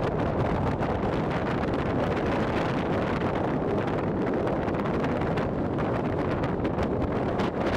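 Strong wind buffeting the microphone, a steady loud rush with no thunder claps, from the outflow of an approaching thunderstorm squall line.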